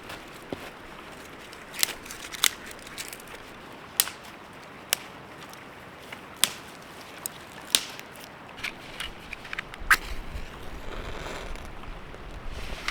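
Dry wood snapping in sharp, irregular cracks, roughly one every second or two. A low rumble of wind on the microphone comes in near the end.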